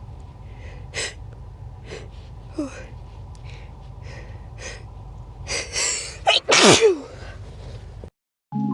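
A sneeze build-up: a string of short, sharp breaths, then catching gasps, ending in one loud sneeze about six and a half seconds in.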